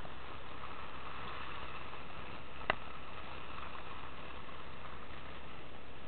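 Steady seaside ambience, an even hiss of wind and sea, with a single sharp click nearly three seconds in.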